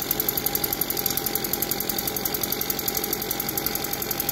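Husqvarna backpack leaf blower's engine idling with a fast, even pulsing chug.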